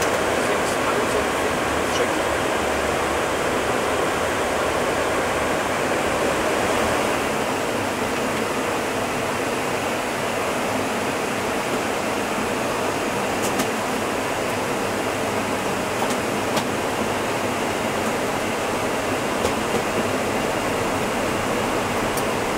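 Steady rushing noise in the cockpit of an Embraer E195 jet airliner in descent: air rushing past the nose and windshield, mixed with the air-conditioning. A few faint clicks come through it.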